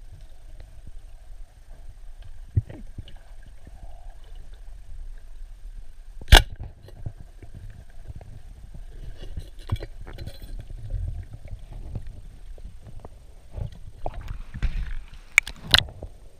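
Underwater sound in a strong river current: a steady low rumble of moving water against the camera, with scattered clicks and knocks. One sharp loud crack comes about six seconds in, and a few more sharp clicks come near the end.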